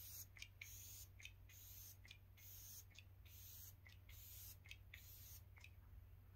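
Faint, quick hissy spritzes from a small facial mist spray bottle, about a dozen in irregular succession, over a low steady hum.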